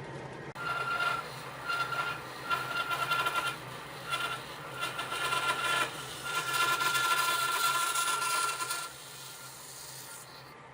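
A tool working on wood: a rasping rub with a steady whine that comes and goes in several stretches, longest in the second half. It starts abruptly about half a second in and stops abruptly near the end.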